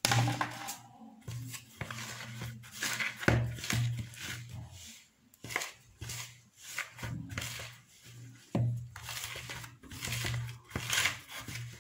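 Wire whisk stirring thick flour dough in a plastic bowl: irregular scraping strokes with dull knocks against the bowl.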